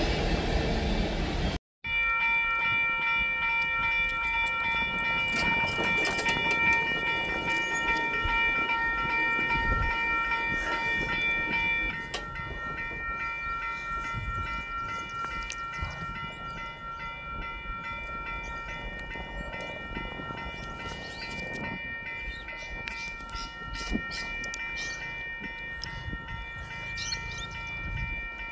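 A 49 class diesel locomotive and its heritage carriages running past close by and then away into the distance. After a short break, a steady high-pitched whine hangs on and slowly fades as the train recedes.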